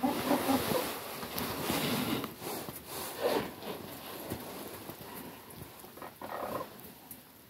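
Chickens clucking and squawking in short calls, one at the start and more about three and six seconds in, with rustling between them.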